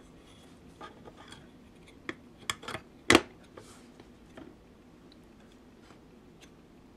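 Hands handling a plastic computer fan whose rotor has had its permanent magnets removed, making a scatter of light clicks and taps. The loudest click comes a little after three seconds in, and only faint ticks follow.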